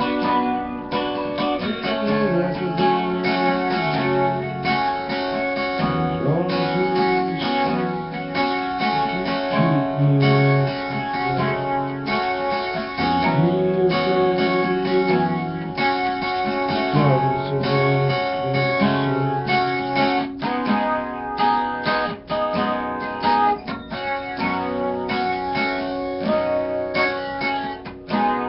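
Guitar music: a strummed acoustic guitar playing a continuous instrumental passage.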